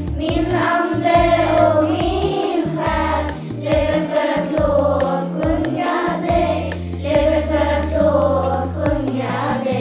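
A hymn sung by a group of voices over an instrumental backing with bass and a steady beat.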